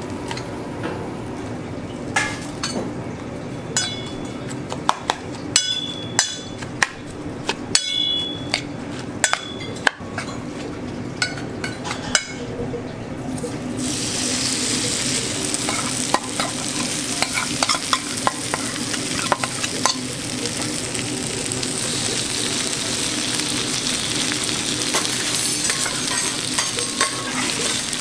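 A metal spoon clinking and scraping in a stainless steel bowl as egg is mixed into shredded cabbage, then, about halfway through, a steady sizzle with crackles as the mixture is poured onto the hot teppanyaki griddle.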